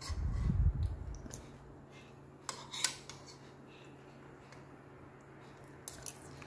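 Metal spoon and fork clinking and scraping on a plastic plate, with a few sharp clicks between two and a half and three seconds in and fainter ones near the end. A low rumble fills the first second.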